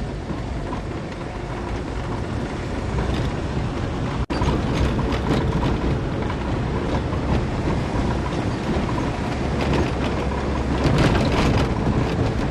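Road and engine noise of a car driving, heard from inside the car. The sound cuts out for an instant about four seconds in.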